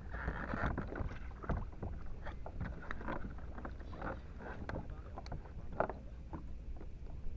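Irregular clicks and knocks of gear being handled aboard a fishing kayak, over a steady low rumble of wind on the microphone.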